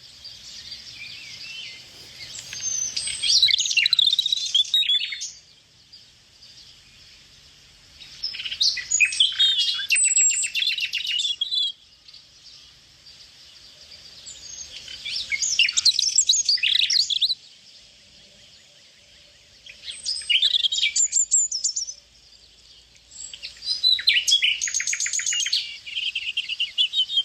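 A songbird singing: five complex warbled phrases with rapid trills, each a few seconds long, separated by short pauses.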